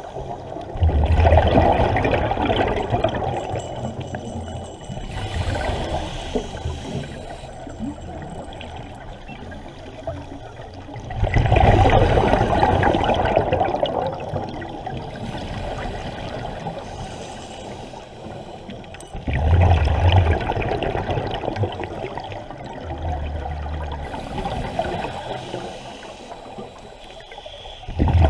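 Scuba diver's regulator underwater: exhaled air bursts out in a loud bubbling rush every eight to ten seconds, three times with a fourth starting at the end, each trailing off over a few seconds, with quieter hissing breaths drawn in between.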